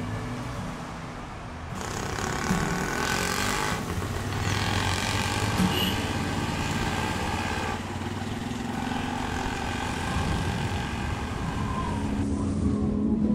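Steady rumbling vehicle noise with no speech, getting louder about two seconds in.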